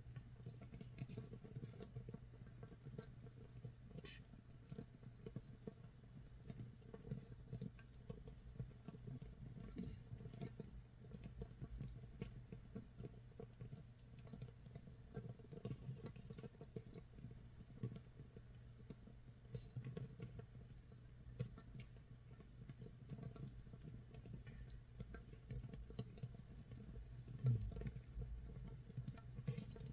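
Makgeolli base brew (mitsul) fermenting in an earthenware jar, about 24 hours in: carbon dioxide bubbles pop at the surface in a dense, continuous, faint crackle, like light rain or rice crust toasting. One louder pop comes near the end.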